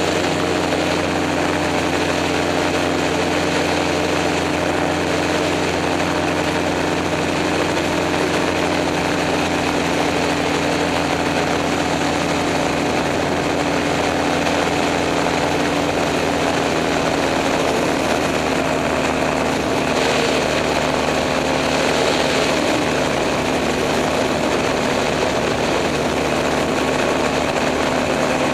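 Gyroplane's engine and propeller running steadily over a rush of wind, easing slightly lower in pitch about two-thirds of the way through as power comes back on final approach to landing.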